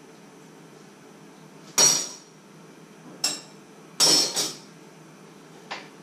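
Metal cutlery clattering as a handful of forks and knives is handled and set down on the wooden counter: sharp clinks about two seconds in, again around three, a double clatter about four seconds in, and a faint one near the end.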